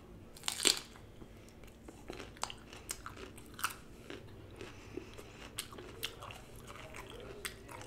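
Close-miked eating of chicken wings dipped in ranch: a loud bite about half a second in, then chewing with small crisp crunches and wet mouth clicks every half second or so.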